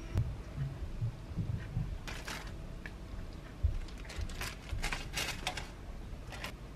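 Thin plastic wrapper crinkling in short crackly bursts as a cheese slice is peeled from it, with a few soft thumps of food being laid on the sandwich.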